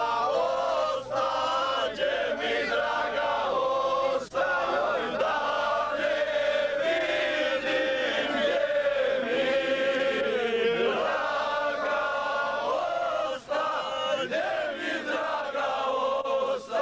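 A group of men singing together in unison, unaccompanied, with long drawn-out notes and two brief breaks in the singing.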